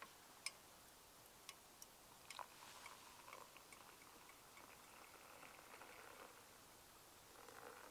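Faint clicks of a metal camp-stove pot being lifted, then a thin stream of water pouring from it into a small cup for about three and a half seconds.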